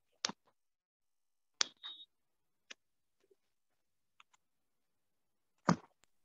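Four or so short, sharp clicks or taps, a second or more apart, coming over an online video-call link with dead silence between them.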